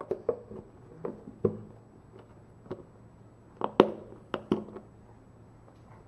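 Irregular light taps and knocks from hands packing cut watermelon pieces into a container, with the loudest knock a little before four seconds in, over a faint low hum.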